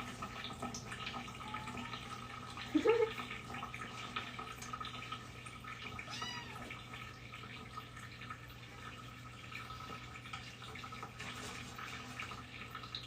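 Freshly bathed kitten mewing: one high, arching mew about six seconds in, with a louder, short rising cry near three seconds. A steady low hum runs underneath.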